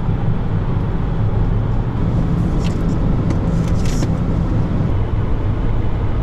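Steady road and tyre noise with a low engine hum inside a Volvo's cabin at highway speed, with a few faint clicks and rustles about halfway through.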